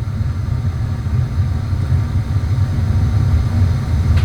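Steady low mechanical rumble of a motor running in the background, even and unbroken.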